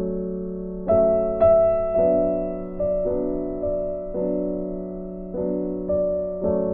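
Background piano music: chords struck roughly once a second, each left to ring and fade.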